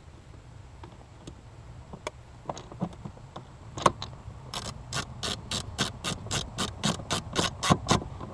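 Scattered light clicks and knocks, then one sharp click about four seconds in, followed by an even run of sharp mechanical clicks, about four a second, that stops near the end.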